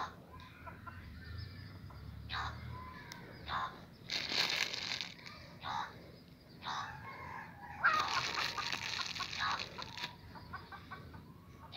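Domestic chickens clucking and calling in short bursts, the longest lasting about two seconds, roughly eight seconds in.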